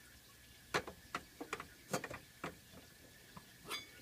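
Light metallic clicks and taps as a steel backpacking pot and its lid are handled, about eight in all, scattered irregularly. Near the end there is one ringing clink of metal on metal.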